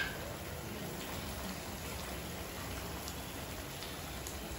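Food in a soy-sauce gravy simmering in a frying pan on a gas stove, a soft, steady sizzle.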